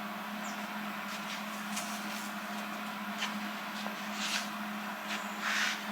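Hobart welder striking a few short, sputtering arcs on a steel axle housing, a brief crackle every second or so with the longest near the end, over a steady low hum. The arc is not yet holding steady.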